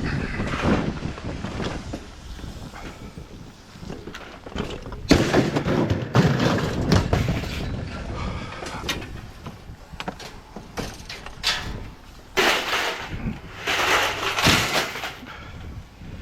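Scrap metal being handled and sorted: clattering and knocks of metal pieces, loudest in bursts about five to seven seconds in and again near the end.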